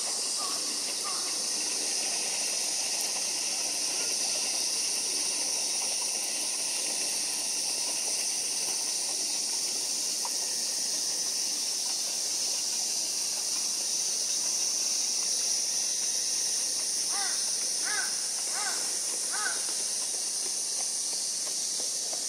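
Steady high-pitched insect drone, with short peeping calls from little grebe chicks: a couple at the start and a run of about five near the end.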